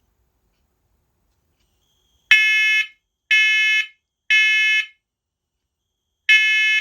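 First Alert Onelink talking smoke and carbon monoxide alarm sounding its smoke alarm on test, starting about two seconds in. It gives three loud half-second beeps a second apart, a pause, then the first beep of the next round: the temporal-three pattern that signals smoke.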